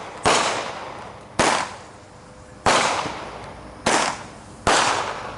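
Consumer fireworks going off: five loud bangs about a second apart, each fading away over about a second.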